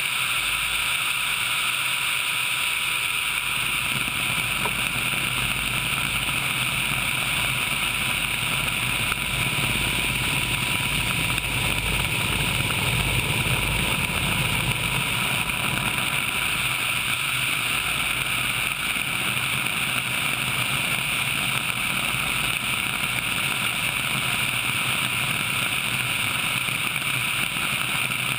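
Sikorsky HH-60 Pave Hawk helicopter in flight, heard from a camera mounted outside the cabin: a steady noise of its twin turboshaft engines and rotor mixed with rushing air. It swells slightly around the middle.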